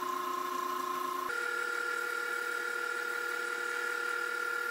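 Wood lathe running with a steady motor whine over a light hiss while sandpaper is held against the spinning mesquite vase. The whine jumps to a higher pitch about a second in and holds there.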